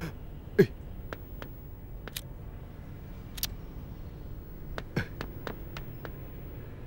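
A scattered series of light clicks and knocks over a low steady hum, with one louder thump about half a second in and a quick run of clicks near the end.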